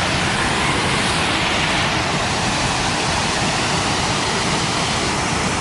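Waterfall's steady rush of falling water, loud and unchanging.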